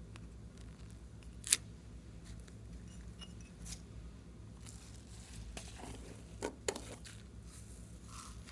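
Clear slime being handled and worked by hand: quiet sticky handling noise broken by a few sharp pops and clicks. The loudest pop is about a second and a half in, and two quick ones come close together near the end.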